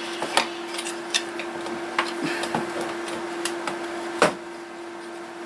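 Scattered clicks and knocks of an Aiwa boombox's plastic casing and carry handle being handled and fitted back into place, with one sharp snap about four seconds in. A steady hum runs underneath.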